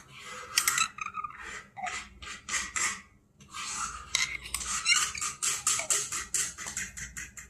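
A metal spoon scraping and clinking inside a jar of jelly as it is scooped out, in a run of short scrapes with a brief pause near the middle.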